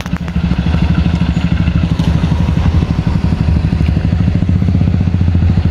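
A motorcycle riding slowly past close by, its small engine running steadily with a fast even beat.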